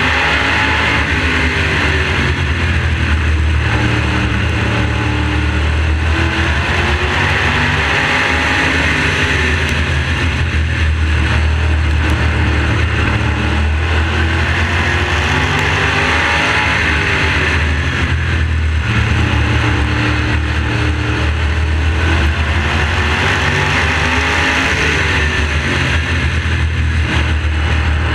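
Modified race car's engine at racing speed, heard close from the onboard camera, its pitch falling off and climbing again about every seven to eight seconds as the car lifts for the corners and accelerates down the straights.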